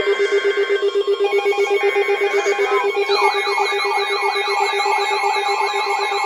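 Several weather alert radios sounding their alarms together for a severe thunderstorm watch: a fast low beeping, about eight beeps a second, with a rising-and-falling siren-like warble joining about three seconds in.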